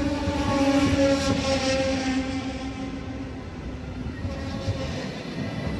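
DSB double-deck Twindexx train hauled by a Siemens Vectron electric locomotive rolling past along the platform. A steady rail rumble runs under several whining tones that drift slightly lower, loudest about a second in and easing off after that.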